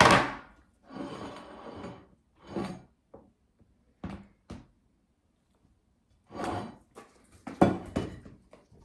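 A sharp knock, then scattered light clicks and knocks of things being handled on a table, with a couple of short breathy hisses between them.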